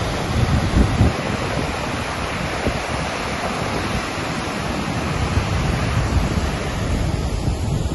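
Water rushing through a row of open dam sluice gates and churning down the spillway, a steady loud rush. Wind buffets the microphone in gusts about a second in.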